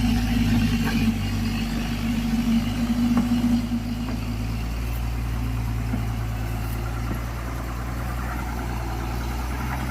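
Engine of a large earthmoving road-repair machine running steadily: a low drone with a higher steady tone that fades out about four and a half seconds in.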